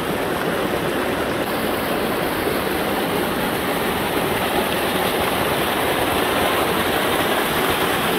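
Swollen stream rushing steadily, its flow raised by heavier snowfall further up the mountain.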